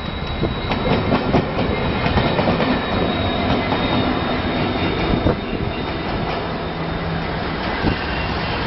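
WDG-4 diesel-electric locomotive running light past at speed, its engine running steadily and its wheels clicking over the rails as it goes by and heads away.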